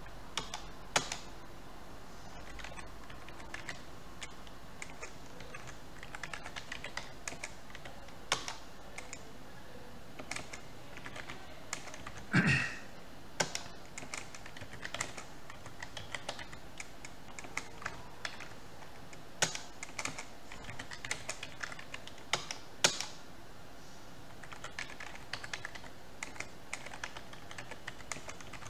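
Computer keyboard typing in irregular runs of keystrokes with short pauses. About halfway through there is one brief pitched sound, the loudest moment.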